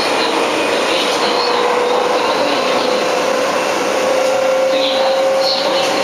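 Seibu 2000 series electric train running, heard from inside the car: steady wheel and track rumble, with the whine of its field-chopper-controlled traction motors rising slowly in pitch as the train gathers speed.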